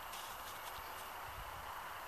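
Faint hoofbeats of two horses galloping on grass, a few soft thuds over a steady hiss.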